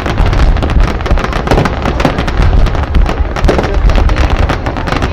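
Fireworks display going off: a rapid, dense run of bangs and crackles over a continuous low rumble.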